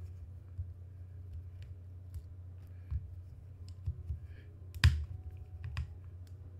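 Small scattered clicks and ticks of a screwdriver working screws and metal parts on an airsoft rifle gearbox, with one sharp click about five seconds in, the loudest of them. A steady low hum runs underneath.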